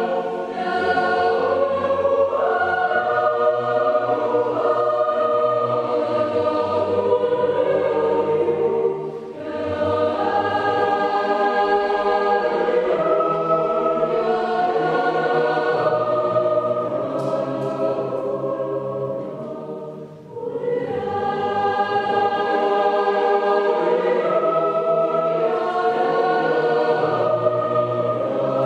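Mixed youth choir singing sustained chords, with brief breaths between phrases about nine and twenty seconds in.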